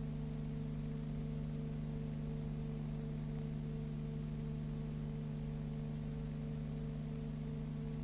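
Steady low hum with hiss over it and a higher tone pulsing about three times a second. There are no bird calls.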